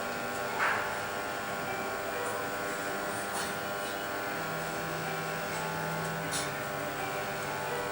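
A steady electrical hum with many overtones, like an appliance or fan motor running, with a brief higher sound about half a second in and two light clicks later on.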